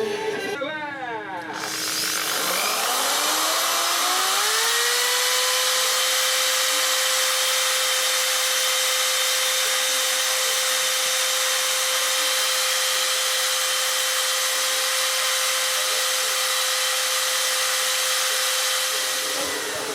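580 W electric drill motor running with no load: it spins up over about three seconds, its whine rising in pitch, then runs at a steady full-speed whine and stops near the end.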